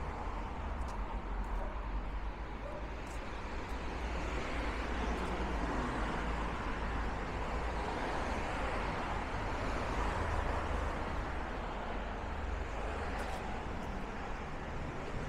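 Steady city road traffic: the continuous rush of passing cars, swelling a little about halfway through.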